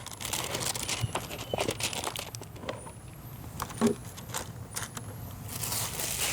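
Scattered small clicks and light knocks, with one firmer knock about two-thirds of the way in and a brief rustle near the end. Faint high, rising chirps repeat about once a second behind them.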